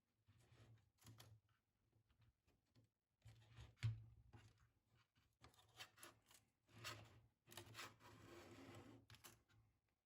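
Faint handling noises from the opened IBM Model M keyboard: scattered light clicks and rubbing, with one sharper click about four seconds in and a longer scraping, rustling stretch near the end.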